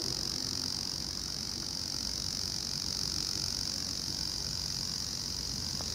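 Insects droning steadily with one unbroken high-pitched buzz.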